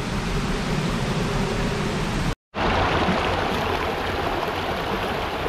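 Shallow rocky mountain stream running, water rushing steadily over rocks and small rapids. The sound drops out for a moment a little over two seconds in and comes back a little brighter.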